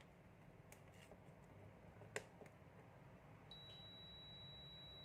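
Multimeter's continuity buzzer giving a faint, steady high-pitched beep from about three and a half seconds in, after a light click of the probe. The probes are bridging the inductor's coil, which conducts: a sign the inductor is good.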